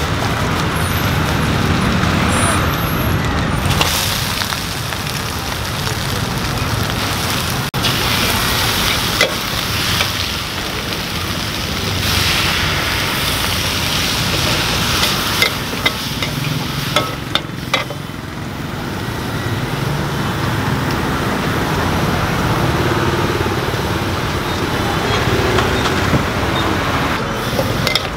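Busy street noise: steady road traffic with people talking and a few sharp clanks.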